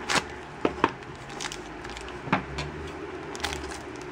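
Plastic packaging crinkling and crackling in the hands as a Shopkins blind basket and its foil bag are opened, with a few sharp clicks and snaps.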